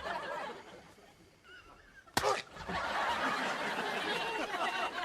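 Sitcom studio audience laughing, swelling into a sustained burst of laughter just after a short, sharp noise about two seconds in.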